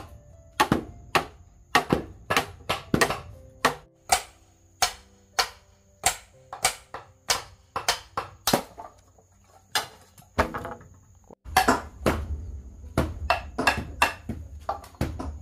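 Bamboo being chopped and hammered: sharp knocks of a blade and a mallet striking bamboo poles, about two a second, some leaving a brief hollow ring. About eleven seconds in the strikes come closer together.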